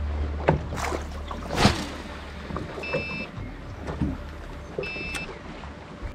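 Fishing sounds in an aluminium boat: scattered knocks and clicks, a loud swish about one and a half seconds in as a pike lure is cast, and two short electronic beeps from the boat's electronics about two seconds apart. A low hum stops just before the swish.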